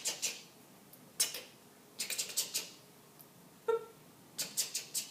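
A woman's voice making short hissing, breathy mouth sound effects in several quick groups, one for each stroke of an uppercase E, with a brief voiced sound about two-thirds of the way through.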